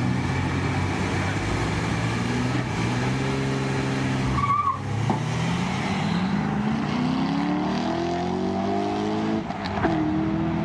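A GMC Syclone's turbocharged 4.3-litre V6 and a Chevrolet Corvette launching off a drag-strip start line and accelerating hard. The engine pitch climbs for several seconds, then drops and climbs again near the end, as at a gear change, with a short high chirp about four and a half seconds in.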